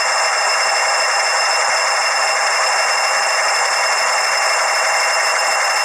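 A TTS sound decoder in a Bachmann Class 40 model locomotive playing a steady diesel engine sound through the loco's small standard speaker while it crawls at the lowest speed step.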